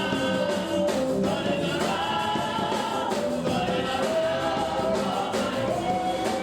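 Gospel praise music with voices singing together over instruments.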